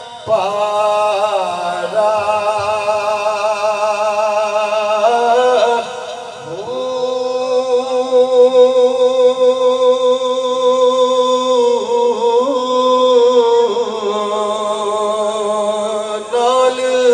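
A man singing a naat into a microphone, one voice drawing out long held notes with a wavering vibrato and breaking off briefly a few times for breath.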